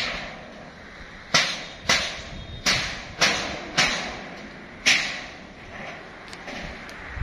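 Hammer blows on a steel roof frame: six sharp strikes, mostly about half a second apart with a longer gap before the last, each ringing briefly.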